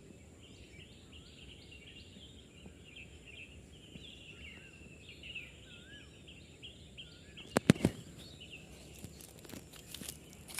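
Night forest ambience: a faint, steady high-pitched insect drone under a run of short, wavering chirping calls from small animals. About seven and a half seconds in come a few sharp clicks or knocks.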